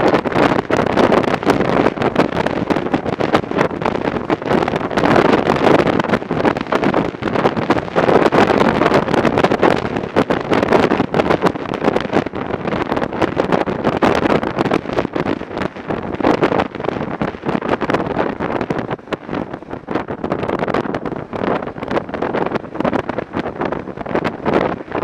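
Wind buffeting the microphone of a moving BMW F650 motorcycle, over the bike's running and road noise. The wind noise stays loud and unbroken, rising and falling rapidly.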